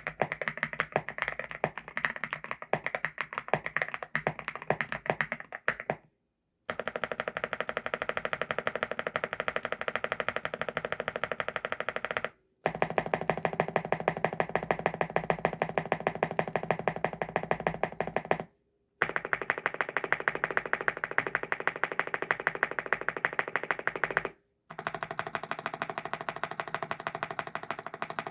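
Fast typing on a CIDOO ABM081 Stellar mechanical keyboard with CIDOO Carda switches, a dense run of key clicks. It is cut off abruptly three times by brief silences, with the typing resuming after each.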